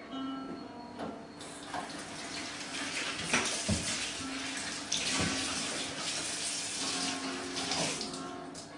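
Kitchen tap running into a stainless steel sink while hands are rinsed under the stream, with a few light knocks against the sink. The water starts about a second and a half in and fades near the end.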